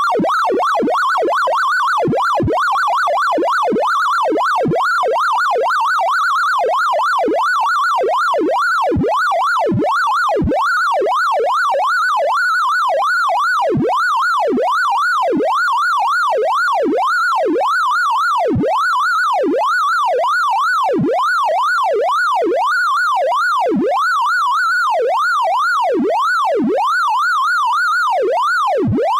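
Computer-generated tones of a sorting-algorithm sonification: a rapid stream of electronic beeps whose pitch follows the values of the array elements being compared and moved. The pitch keeps dipping low and climbing back up, over and over, a couple of times a second, in a wailing, siren-like pattern.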